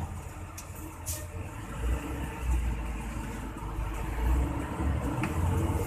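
Hino AK8 bus's diesel engine and road noise, a steady low rumble that grows somewhat heavier about two seconds in, with a couple of faint clicks near the start.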